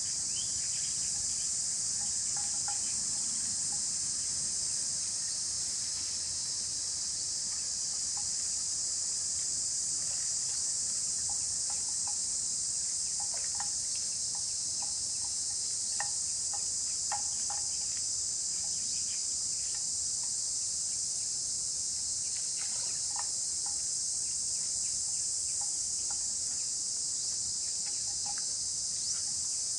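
Steady high-pitched drone of insects calling in chorus, with faint short tearing or crunching sounds scattered through it, fitting a water buffalo cropping grass.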